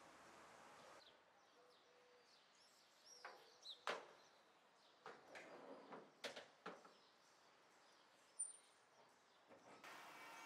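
Quiet outdoor street ambience with a few scattered bird chirps and a handful of short, light knocks and clanks from tools being handled on a work truck's flatbed, grouped around the middle.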